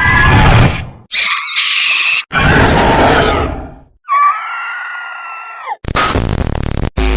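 A string of horror sound effects for a witch's scream: loud rushing bursts alternate with a shrill, pitch-gliding shriek about a second in and a long wailing scream that drops in pitch at its end.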